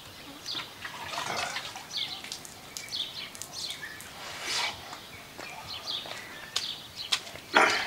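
Birds chirping in short calls, with water splashing and dripping as a man washes his hands and face. A short, loud sound stands out near the end.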